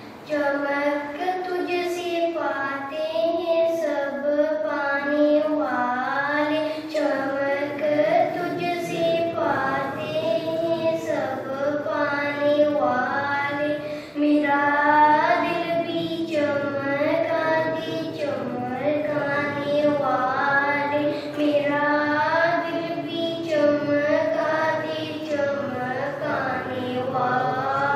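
A young boy singing an Urdu naat into a microphone, a single high child's voice with long, wavering, ornamented notes.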